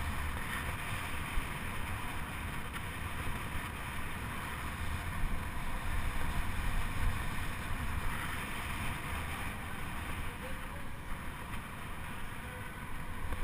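Steady rush of wind on the microphone over a low rumble, the sound of a track bike riding around a velodrome.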